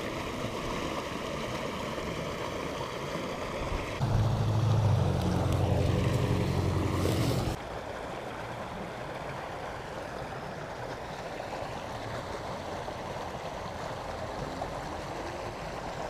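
Steady outdoor noise of traffic and wind, with a louder, lower engine hum for about three and a half seconds starting about four seconds in that stops suddenly.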